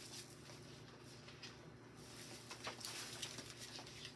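Faint rustling and light clicks of packaged craft moulds being handled and picked up, over a low, steady electrical hum.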